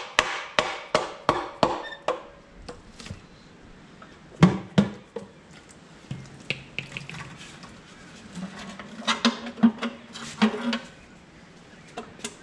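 Hand tools knocking and tapping on metal engine parts while the engine is being taken apart: a quick run of evenly spaced taps at first, then scattered knocks with a heavier thud partway through and a busier cluster near the end.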